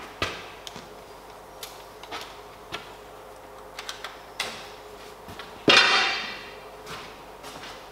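Light clicks and knocks of gear being handled on a steel wall rack, then one loud metallic clank about six seconds in, ringing briefly as it fades.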